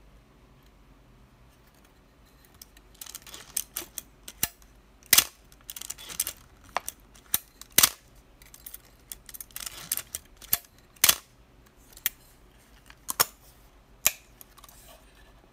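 Mechanism of a 1971 Canon FTb film SLR being worked by hand: from about two and a half seconds in, short ratcheting rattles alternate with sharp mechanical snaps, the film advance being wound and the shutter fired. The five loudest snaps come a couple of seconds apart.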